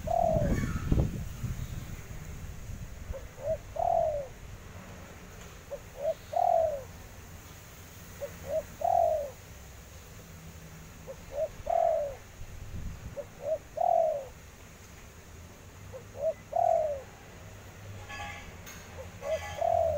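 Spotted dove (derkuku) cooing: a phrase of a couple of soft short notes and one louder falling coo, repeated about every two and a half seconds, eight times. A low rumble in the first second.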